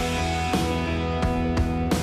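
Background music with held pitched notes and a steady beat.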